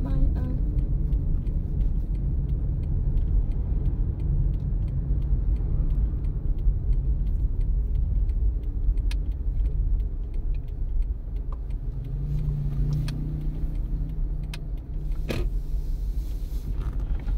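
Car cabin noise while driving: a steady low rumble of engine and tyres on the road, with faint small rattles and one sharp thump near the end.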